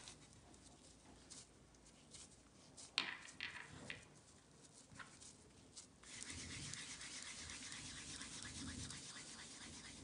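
Faint handling of crumbly roasted-chickpea cookie dough by hand: a few soft clicks and taps, then from about six seconds in a steady rubbing hiss as the hands work and roll the dough.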